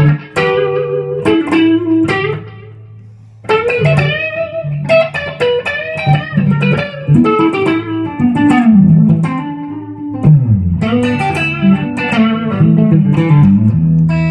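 Electric guitar, an Epiphone Les Paul Custom with Gibson 490 humbuckers, played through an amplifier: picked single-note lead lines with string bends and a short pause about two seconds in, ending on a strummed chord left ringing.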